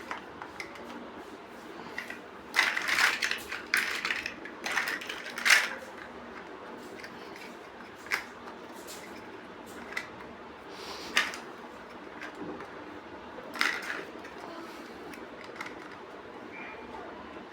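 Plastic LEGO-style bricks being handled and snapped together. There is a busy run of clicks and rattles a few seconds in, then single sharp clicks every couple of seconds.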